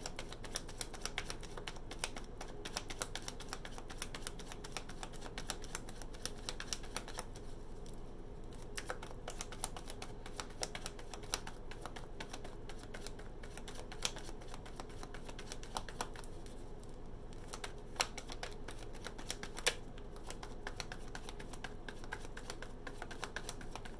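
A tarot deck shuffled overhand by hand: a dense patter of light card clicks for the first several seconds, then sparser, with a few sharper snaps of cards.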